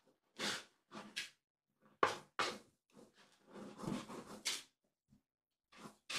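Kitten digging in cat litter in a plastic litter box: repeated short scratching strokes, with a longer run of scratching about four seconds in.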